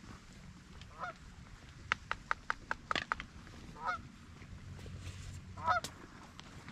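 Canada goose honking: single honks a second or two apart, with a quick run of about six short, sharp clucks between two and three seconds in.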